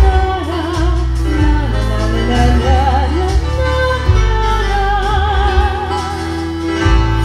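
A female vocalist singing drawn-out, wordless notes that waver, over a backing track with a steady bass, amplified through a stage PA.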